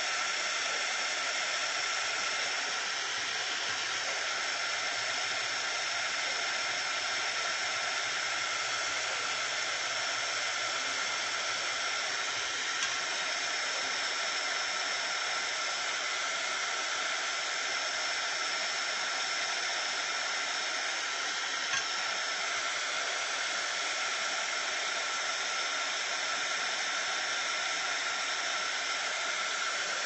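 Handheld craft heat tool blowing hot air onto a wet watercolor painting to dry it: a steady airy hiss with a thin, high, steady whine in it.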